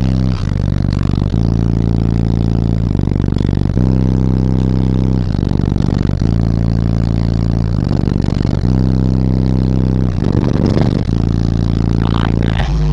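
Bass-heavy music played very loud through six FU Audio 15-inch subwoofers on a DB Drive 3500 amplifier: long, deep held bass notes that change pitch every second or so.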